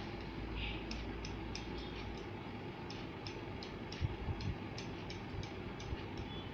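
Barber's scissors snipping a beard over a comb, a steady run of sharp snips about three a second. A few low thumps about four seconds in.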